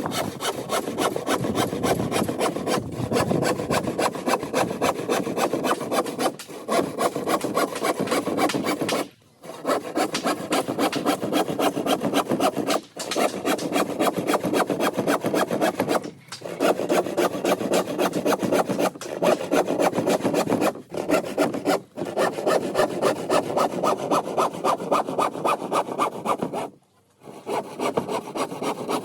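Hand saw cutting wood in steady, quick back-and-forth strokes, in long runs broken by short pauses, the longest about nine seconds in and near the end.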